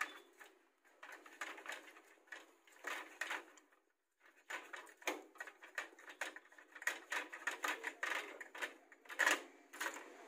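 A long screwdriver turning out a screw from the metal frame of a copier's paper pickup unit: irregular small clicks and scrapes of the tip in the screw head and of metal parts, with a short pause about four seconds in.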